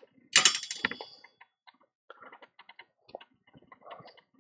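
Light, irregular clicking and tapping, with a brief louder rustle in the first second.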